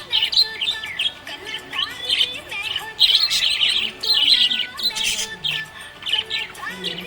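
Budgerigar chirping and warbling in quick, continuous runs of short high notes, with faint background music underneath.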